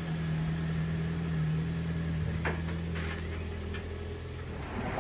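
Vehicle engine running steadily while driving, a low even drone with a couple of light knocks about two and a half and three seconds in.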